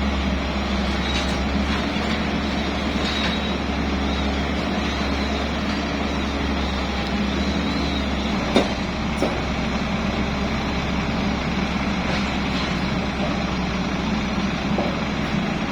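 Excavator's diesel engine running steadily, with one sharp metallic clank a little over halfway through and a lighter knock just after.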